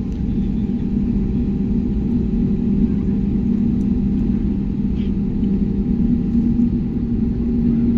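Cabin noise inside an Airbus A320neo: a steady, even drone of engines and airflow with a low hum, with a few faint clicks.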